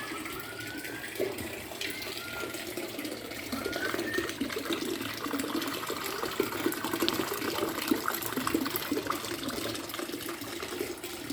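Water trickling and splashing steadily, with a few faint short rising chirps in the first few seconds.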